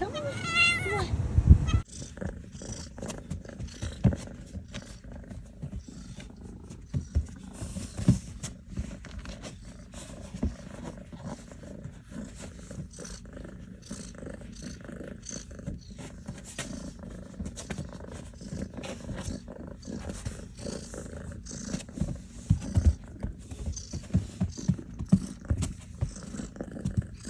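A kitten gives a loud meow, then after an abrupt cut, purrs steadily in a low rumble, with scattered light clicks and rustles.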